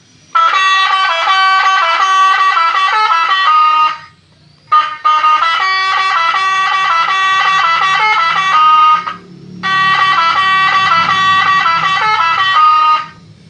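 Electronic telolet bus-horn melody from a 12 V horn module played loud through a horn-shaped 'toa' PA speaker: a fast run of stepping, bright electronic notes. The tune plays three times, each run about four seconds, with short breaks between.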